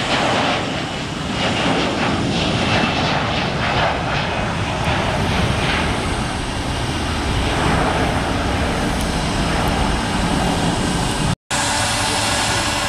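Airbus A321 jet engines at takeoff thrust: a loud, steady roar as the airliner accelerates down the runway, lifts off and climbs away. About eleven seconds in it cuts off abruptly, and after a moment of silence a different, steadier engine hum takes over.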